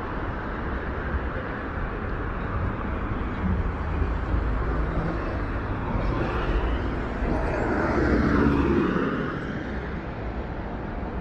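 City traffic noise with a steady low rumble; a vehicle passes, growing louder to a peak about eight seconds in and then fading.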